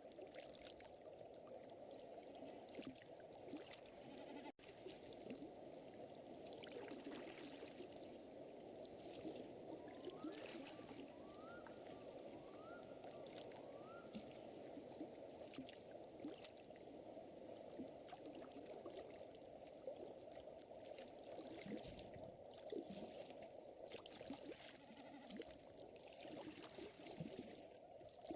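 Faint mixed nature ambience: a steady trickle of lake water with the scattered small pops of a crackling fire, and a run of four short rising chirps from a small animal about ten seconds in.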